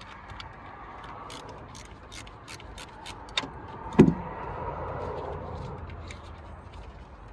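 Ratchet wrench clicking through a run of quick, even strokes, about five clicks a second, then a single loud knock about four seconds in.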